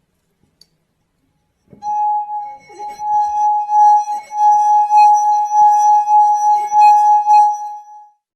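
A single steady high ringing tone, starting about two seconds in and held for about six seconds with a wavering loudness, over a few soft low knocks.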